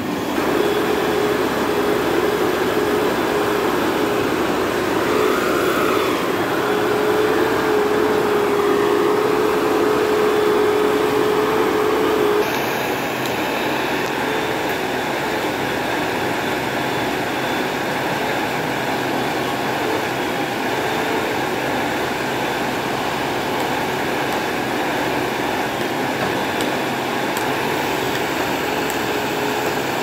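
A JCB 4DX backhoe loader's diesel engine running steadily as the machine works, with a steady high tone over it. About twelve seconds in the sound drops a little and the tone stops.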